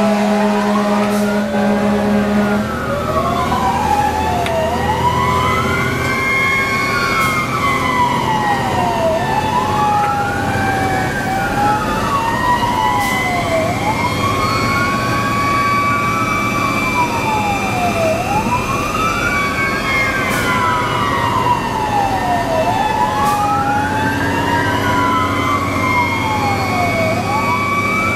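Fire engine siren wailing, rising and falling about every four and a half seconds, heard from inside the cab. A second siren tone sweeps up and down more slowly above it, over the truck's engine running.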